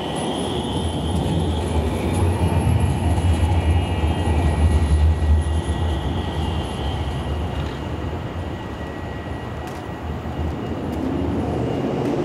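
Alstom Citadis tram running past and pulling away: a low rumble with faint high-pitched whining tones over it. The rumble is loudest a few seconds in and dies away near the end.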